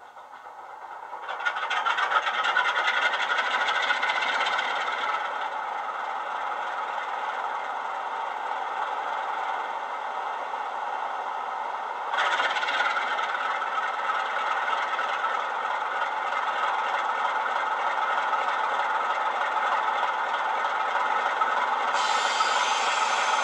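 Class 47 diesel engine sound from a Coastal DCC sound decoder, played through two tiny 20x20x7 mm megabass speakers in an OO-gauge Bachmann model. It swells up from quiet over the first two seconds to a steady idle, typical of a start-up sequence, and sounds thin, with no deep bass. A sudden louder, brighter layer joins about halfway through, and a high hiss is added near the end.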